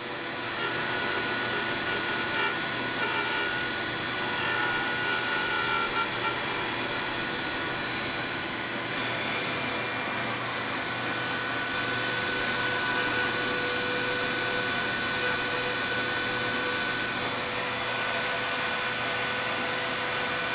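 Dremel rotary tool in a miniature plunge-router base running steadily with a high whine as it routes out an Abalam (laminated abalone) fretboard inlay, mixed with a shop vacuum sucking up the pearl dust at the cut.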